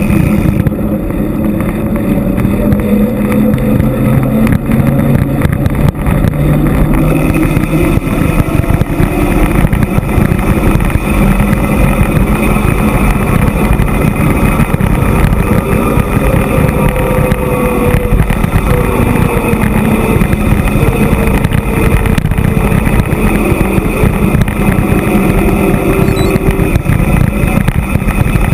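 Steady loud rumble of wind rushing over the action camera's microphone as a bicycle coasts fast down a paved mountain road, mixed with tyre noise and a few faint wavering tones.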